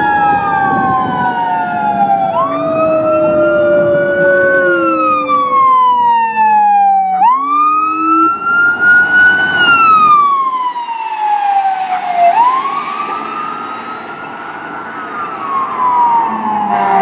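Fire apparatus sirens on a Code 3 response. An electronic wail rises sharply and falls slowly about every five seconds, with a Rumbler low-frequency siren following the same sweep well below it. A second siren tone slowly winds down over the first several seconds.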